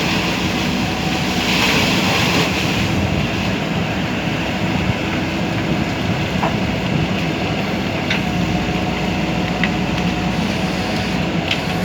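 JCB backhoe loader's diesel engine running steadily under work, with a few sharp clicks scattered through the last half.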